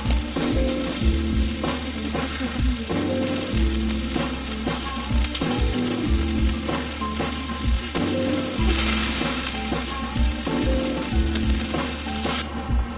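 Food sizzling and frying in a pan over a campfire, a steady hiss with small crackles, swelling louder about two-thirds of the way in and cutting off suddenly near the end. Background music with a bass beat runs underneath.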